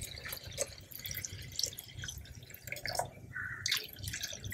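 Fermented waste decomposer liquid poured from a bucket through a plastic strainer into a plastic tub, trickling and dripping faintly.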